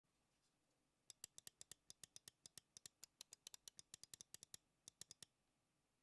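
Fast typing on an Asus ROG Azoth mechanical keyboard with factory-lubed ROG NX Red linear switches: a quick, even run of keystrokes, about eight a second, starting about a second in and stopping about a second before the end.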